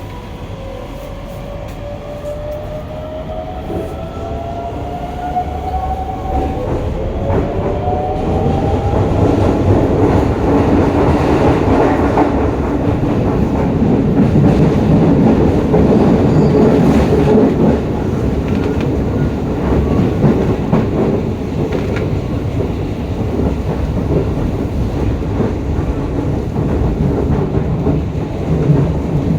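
Hokuso 7300-series electric train with GTO-VVVF inverter drive accelerating. The motor whine climbs in pitch in steps over the first several seconds, then gives way to steady running noise at speed, with wheel-on-rail clatter.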